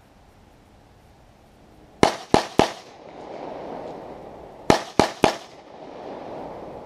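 Pistol fired in two quick strings of three shots, about two seconds in and again near five seconds, each string followed by a long echo.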